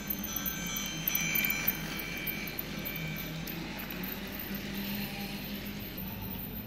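Battery-powered toy train running past on its plastic track: a low steady motor hum under high, ringing chime-like tones, with a few light ticks about a second in.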